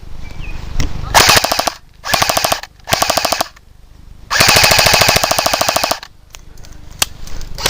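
Airsoft rifles firing on full auto in four rapid-fire bursts. The last and longest burst runs about a second and a half.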